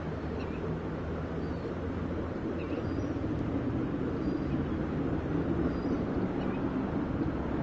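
LMS Stanier Class 5 'Black Five' steam locomotive 45407 working a passenger train, heard from afar: a steady low rumble that grows slowly louder as it comes nearer. Faint bird chirps sound now and then.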